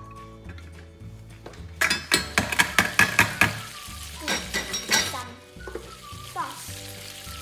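A wooden spatula stirring, scraping and tapping against a small stainless steel toy frying pan: a quick run of clinks about two seconds in and a few more near the middle, followed by a steady high hiss like frying. Background music plays throughout.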